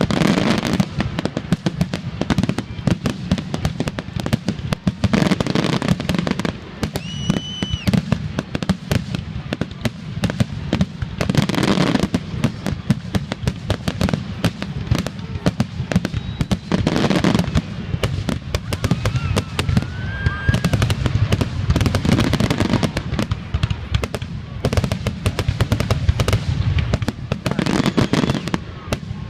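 Fireworks finale: a dense, continuous barrage of shell bursts and crackling, with bigger booms about every five or six seconds. A couple of short whistles rise and hold briefly amid the bursts.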